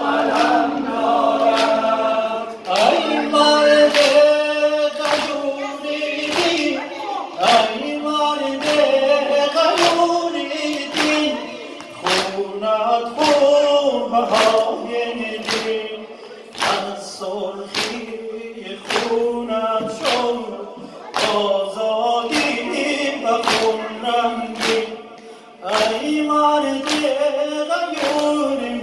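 A Shia Muharram noha sung by a male reciter with the congregation of men singing along, over evenly spaced unison chest-beating slaps, a little faster than one a second.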